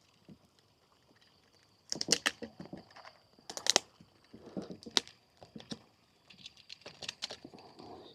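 Wooden stingless-bee hive box being prised open: a run of sharp clicks and cracks with scraping between them, the loudest cracks about two, three and a half, five and seven seconds in.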